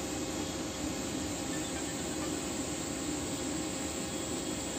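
TIG welding arc burning steadily along a pipe joint: an even, unbroken hiss with a faint hum under it.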